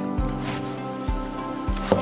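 Instrumental background music: held notes over a deep bass note that sounds roughly once a second, with a short sharp accent near the end.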